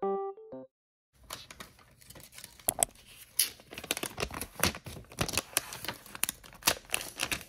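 Protective wrap being peeled off the back of a new iPad, with many quick, irregular crackles and rustles. The last notes of a soft piano tune fade out just before it starts.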